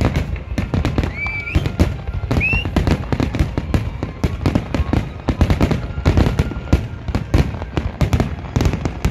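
Fireworks display: aerial shells bursting in rapid, overlapping bangs, several a second, with two short rising whistles in the first three seconds.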